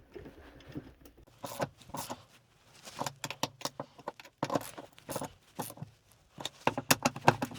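Ratchet wrench clicking in several short runs while tightening the bolts that hold a motorcycle tail tidy.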